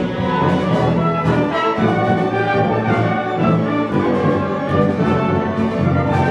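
Live symphony orchestra playing an arrangement of film music, strings and brass together over a steady beat.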